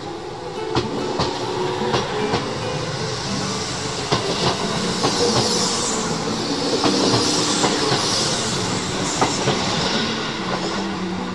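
Tobu 6050 series electric train running past along the platform, its wheels clicking regularly over the rail joints over a steady running rumble. It grows louder towards the middle, where a hiss comes in, then eases off a little.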